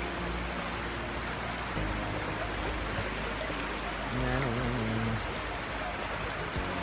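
Steady rush of river water flowing past the bank, with a short voice about four seconds in.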